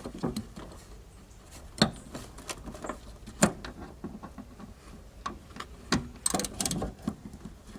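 Metal tool clicks and knocks as a socket wrench with an extension is fitted and worked on the seatbelt retractor bolt: irregular sharp clicks, then a quick run of ratchet-like clicking just after six seconds.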